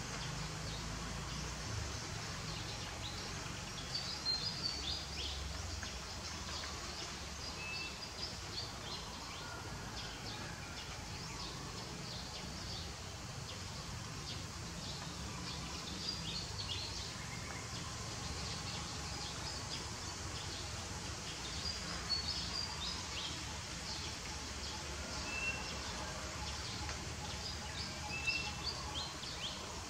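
Outdoor ambience: a steady low background rumble with small birds chirping in short scattered bursts, a few brief single whistled notes among them.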